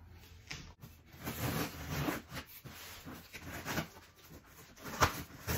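Rustling and scraping as a cardboard box and its packaging are handled and opened, with a sharp knock near the end.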